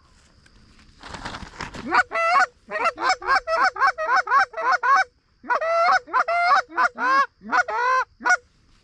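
Canada goose calling: a fast run of short, loud honks and clucks, two to three a second, that starts about two seconds in, breaks briefly midway and stops shortly before the end. It is preceded by a brief rustle.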